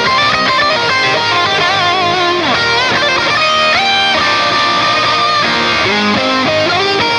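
Electric guitar lead played through a Diezel VH4 tube amp: a melodic line of held notes with bends and wide vibrato, over a dense band backing.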